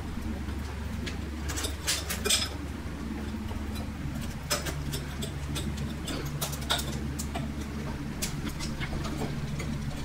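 Small clicks and scrapes of plastic wire nuts being twisted onto the dishwasher power cord's wires and of fingers handling the wires in the sheet-metal junction box, with a cluster of clicks about two seconds in, over a steady low hum.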